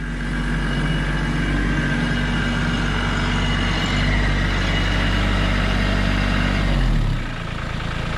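Kubota LX2610 compact tractor's three-cylinder diesel engine running as the tractor drives in, with a faint high whine on top. About seven seconds in, the engine drops to a lower, steady idle as the tractor comes to a stop.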